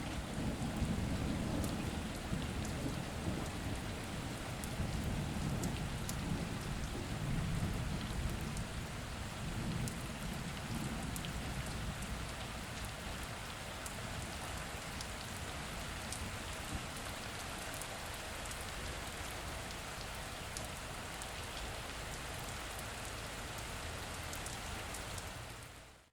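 Steady heavy rain, with sharp drop ticks scattered through it. Low thunder rumbles under the rain for about the first ten seconds, then dies away. The rain fades out at the very end.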